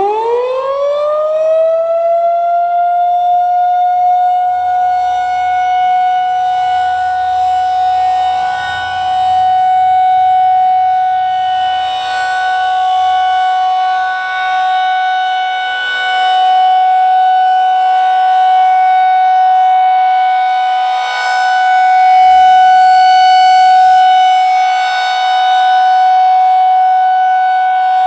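Federal Signal 2001-SRNB rotating electromechanical storm siren winding up quickly to full speed, then holding one steady tone that swells and fades slowly as the rotating horn sweeps around: its steady alert signal.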